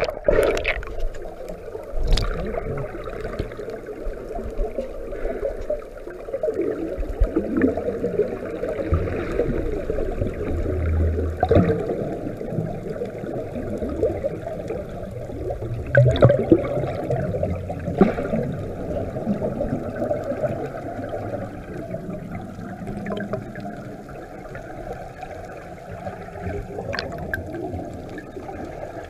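Muffled underwater sound from a camera held under the sea: a steady water rush with gurgling bubbles. A few sharp knocks stand out, the loudest about 16 seconds in.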